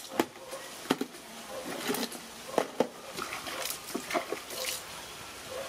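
Water splashing and dripping as a wet baby monkey is scrubbed by hand: a scattered string of short wet slaps and splashes.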